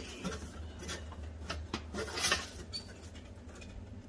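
Light metallic rubbing and clicking as a wire's spade connector is worked onto the terminal of a new oven bake element, with one louder scrape a little past two seconds in.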